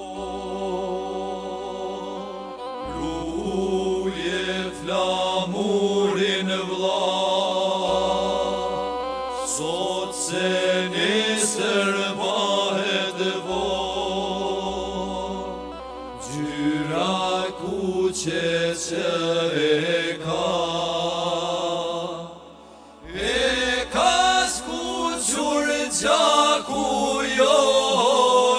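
Albanian folk song: male singing over steady, held instrumental tones, with a brief lull about three-quarters of the way through.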